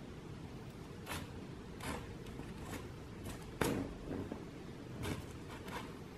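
A kitten's paws and claws scuffing and scratching on a woven mat as it bats at and grabs a ping-pong ball. It is a scattered string of short scratchy scuffs, the loudest about three and a half seconds in, over a faint steady low background noise.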